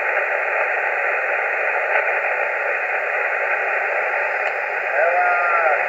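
Hiss from a Yaesu FT-857 HF transceiver on 12.250 MHz upper sideband: a steady rush of band-limited static between transmissions. A distorted sideband voice comes back in near the end.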